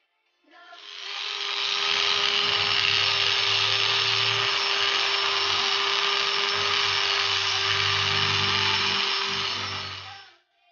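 Handheld rotary tool with a long burr grinding out the port of a Suzuki Shogun 125's aluminium cylinder head. It is a steady high whine that spins up over the first second or two, runs evenly and stops just before the end.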